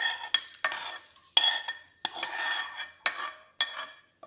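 A metal spoon knocking and scraping against a cooking pot: a run of ringing clinks, about two a second.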